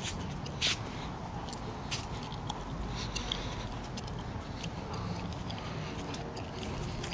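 The LS1 5.7-litre V8 of a 2001 Pontiac Trans Am WS6 idling steadily, fitted with a Texas Speed Torquer V2 camshaft (232/234, 112 LSA), long-tube headers and a Hooker Aero cat-back exhaust. A few sharp clicks sit over it, the loudest a little over half a second in.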